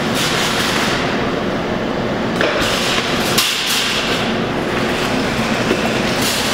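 Steady, loud arcade noise with scattered knocks and clattering around a claw machine.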